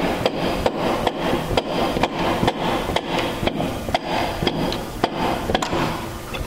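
Rubber hammer tapping the Farmall Cub's IH distributor body to knock it loose from the engine, sharp knocks about two a second.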